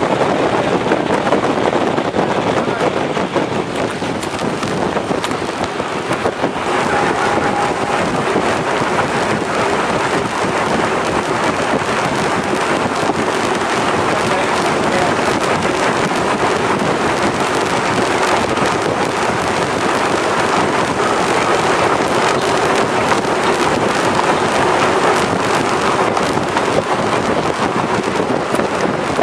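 Steady rush of wind on the microphone aboard a moving warship, mixed with the noise of engines and water.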